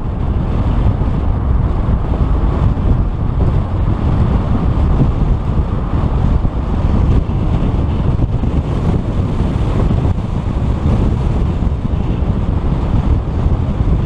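Wind buffeting the microphone of a camera mounted outside a moving car: a loud, steady rushing noise, heaviest in the low range.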